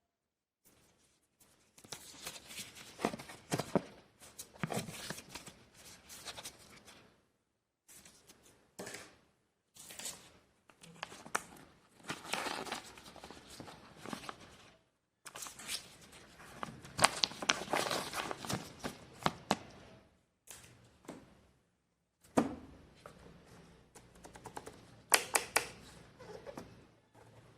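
Packaging rustling and crinkling in irregular bursts, with sharp clicks and knocks of plastic parts being handled.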